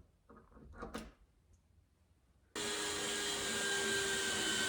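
Power drill running at a steady speed for about two seconds, starting about two and a half seconds in, with a few light handling knocks before it.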